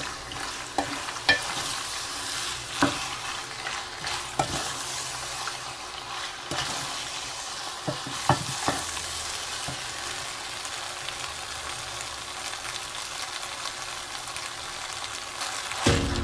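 Wooden spoon stirring sauced penne in a pot on the hob over low heat, with a steady faint sizzle. The spoon knocks against the pot now and then.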